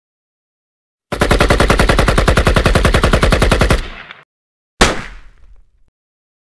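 Automatic rifle fire as a dubbed-in gunfire sound effect: a rapid burst of about two and a half seconds at well over ten shots a second. About a second later comes one single loud shot with a fading echo, on a dead-silent background.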